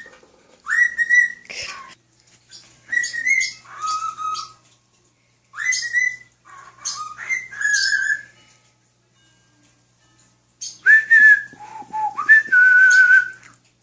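Cockatiel whistling a tune in short phrases of clear notes with pauses between, the longest pause a little past the middle.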